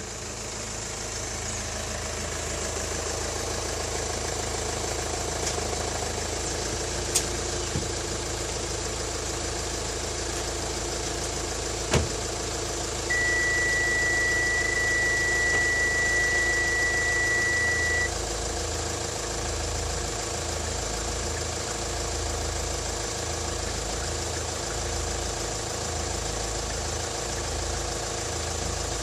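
Car engine idling steadily. A few sharp clicks come early, then one steady high-pitched electronic beep lasts about five seconds near the middle.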